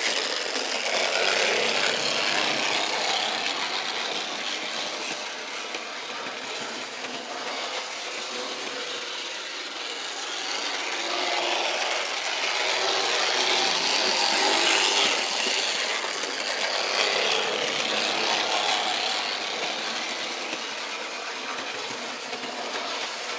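HO-scale model train running around a track loop: a steady rattling rumble of its wheels on the rails and its small electric motor, growing louder as it comes close and easing as it moves away, several times over.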